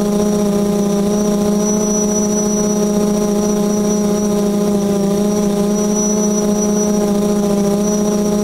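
Quadcopter drone's motors and propellers buzzing steadily while it hovers: a loud, even hum with several steady tones above it and a thin high whine.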